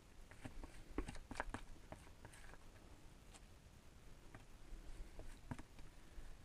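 Faint, scattered clicks and taps of a spreader working quick-setting Bondo body filler into a mold, several close together about a second in and another pair near the end.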